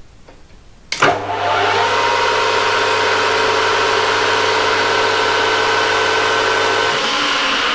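Small metal lathe switched on with a click about a second in, its motor and chuck running up to speed and then spinning steadily with a mix of steady whining tones. Near the end a low hum drops out while the spindle keeps turning.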